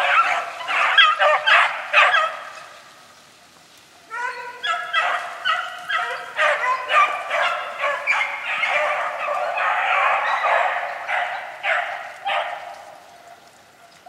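Pack of beagles baying while running a rabbit, with many overlapping yelping cries. The cries fade about two seconds in, pick up again about four seconds in, and go on nearly without a break until near the end.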